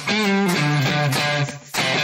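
Instrumental music with guitar, dropping out briefly about three quarters of the way through.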